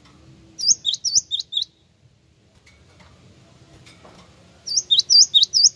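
Cinereous tit (gelatik wingko) singing: two bursts of about a second each, one near the start and one near the end. Each burst is three or four quick repeats of a sharp whistled phrase, a very high note that drops steeply.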